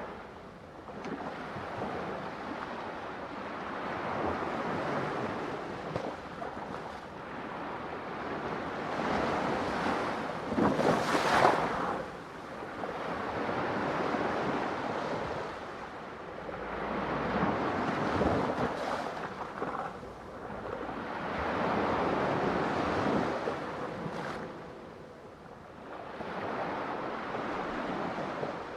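Ocean waves breaking and washing in, swelling and fading every few seconds, with one louder crash about eleven seconds in.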